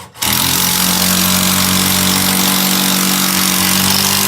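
Cordless drill motor running at a steady high speed, driving a screw through the air handler's mounting edge into a ceiling joist.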